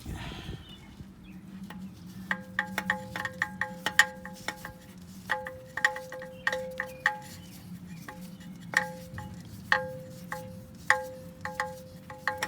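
Light metallic chiming: irregular quick strikes in loose clusters, each ringing out briefly at a clear pitch, over a faint steady hum.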